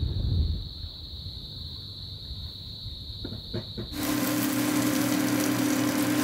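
Cicadas giving a steady, high, single-pitched drone at dusk, with wind rumbling on the microphone at first. About four seconds in this cuts to a louder hiss of coconut milk being poured into a pan of curry vegetables, over a steady low hum.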